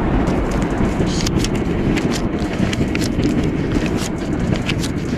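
Banknotes rustling and flicking in the hand as cash is counted: a run of short crisp clicks over a steady low rumble.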